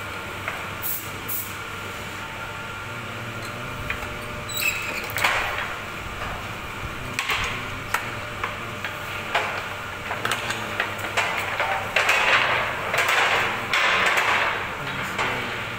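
Steel block-ice cans clanking and scraping against metal over a steady machine hum. There are scattered knocks and louder stretches of rushing, scraping noise, the longest near the end.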